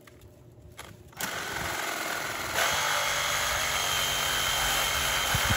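Cordless power saw cutting into dry palm fronds: it starts about a second in and runs steadily with a faint whine, getting louder about two and a half seconds in.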